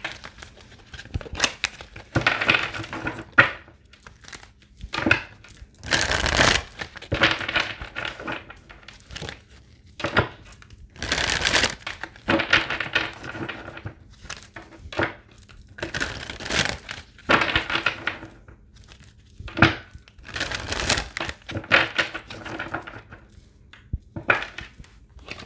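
A deck of cards being shuffled by hand: irregular bursts of rustling and riffling with short pauses between them.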